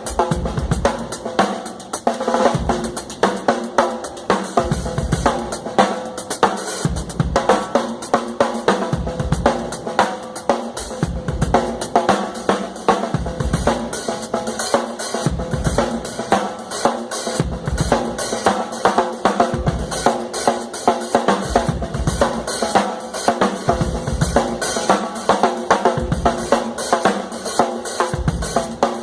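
Drum kit played in a steady groove: regular bass drum thuds under snare hits and rimshots, with hi-hat and cymbals.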